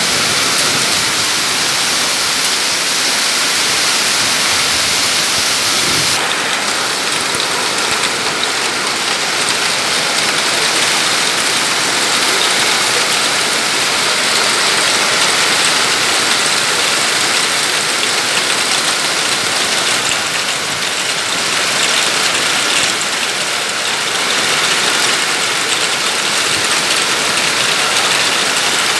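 Heavy hail falling, hailstones pelting the ground in a loud, steady, dense noise without letup.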